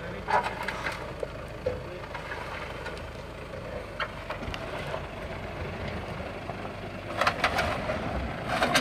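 Toyota Land Cruiser Prado crawling slowly down a steep dirt track: a steady low engine rumble with scattered clicks and knocks, a few near the start and a busier run near the end.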